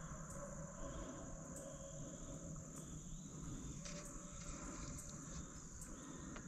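Insect chorus: a steady high-pitched drone, faint, over a low rumble, with a few faint ticks.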